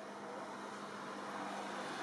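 Steady hum of a motor vehicle's engine in the background, slowly getting louder.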